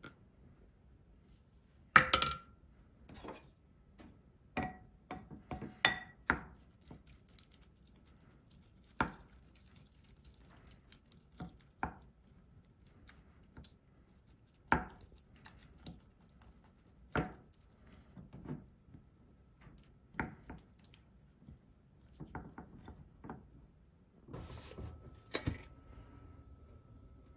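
Kitchenware clinking and knocking: utensils and dishes striking at irregular intervals, with a loud double clatter about two seconds in and a busy cluster near the end.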